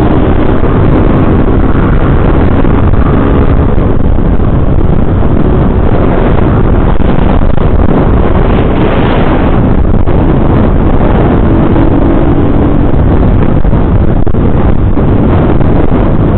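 Motorcycle riding at road speed: loud, steady wind noise on the microphone over the motorcycle's engine running beneath it.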